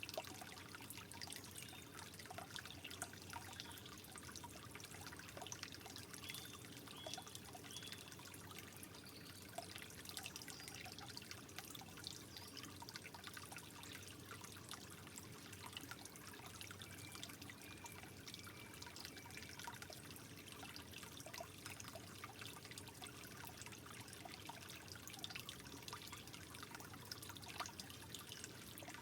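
Water trickling gently and steadily, with many small drips and splashes.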